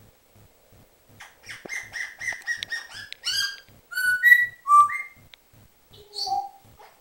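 African grey parrot whistling and calling: a quick run of short repeated notes, then several louder clear whistles at different pitches, then a couple of lower, rougher calls near the end.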